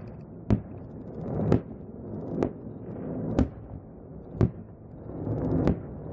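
Fireworks display: aerial shells bursting with sharp bangs about once a second, six in all, with a low rushing noise between them.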